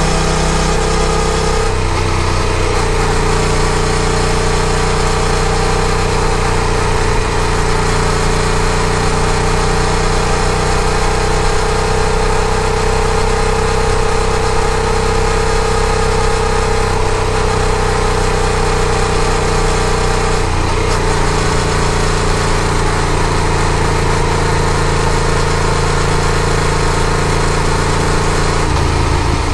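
Yamaha FZ-07's parallel-twin engine running at a steady road speed under a broad rushing hiss. The engine note holds steady and changes briefly about two seconds in, again about twenty seconds later, and near the end.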